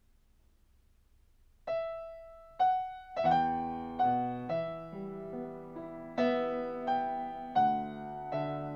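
Upright piano played slowly: after a quiet start, two single notes ring out about a second apart, then full chords are struck roughly every half to three-quarters of a second, each left to ring and fade.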